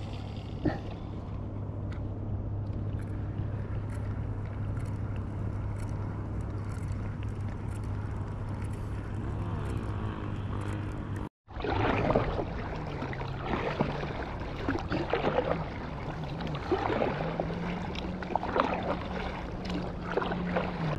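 Water sloshing and splashing around a stand-up paddleboard, over a steady low hum. The sound drops out for a moment a little past halfway, and the splashing is livelier after that.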